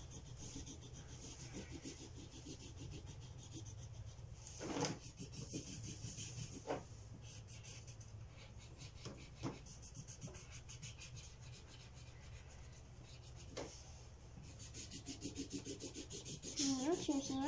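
Felt-tip marker scribbling back and forth on paper in a steady run of quick rubbing strokes, with a few louder scrapes now and then.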